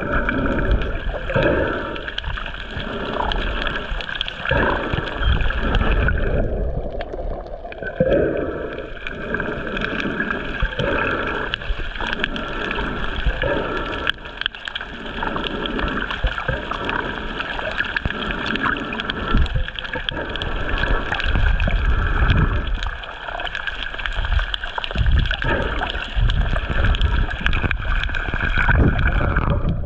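Water moving around an underwater camera as a snorkeler swims, a muffled rushing with uneven low surges every second or so over a steady hiss.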